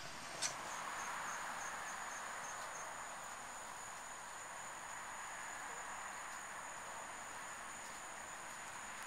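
Steady background hiss with a thin, faint high-pitched whine over it, and a single click about half a second in.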